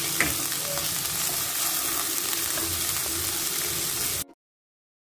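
Chopped onion and whole spices sizzling in hot oil in a non-stick pan while a wooden spatula stirs and scrapes through them, with a single light tap of the spatula near the start. The sizzle stops abruptly a little after four seconds in.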